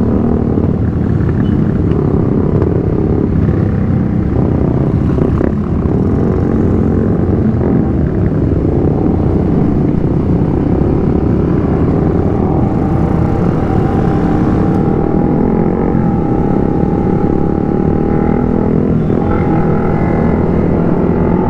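Motorcycle engines running steadily at riding speed, the camera bike's own engine mixed with the exhausts of a group of motorcycles riding close around it, over a constant rush of wind and road noise.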